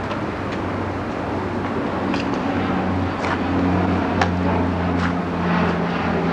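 Low, steady aircraft engine drone that grows louder partway through, with a few faint clicks.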